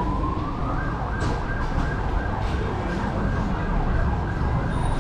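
Emergency vehicle siren whose tone rises in about the first second and then holds steady and high, over the low rumble of street traffic.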